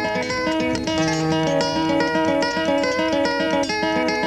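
Flamenco-style acoustic guitar music: quick plucked and strummed notes over lower held notes.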